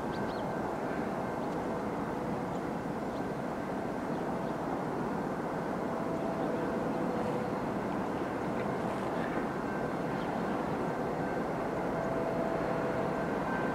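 Diesel freight locomotive running as it leads a train slowly along the tracks: a steady, even rumble with a few faint thin tones above it.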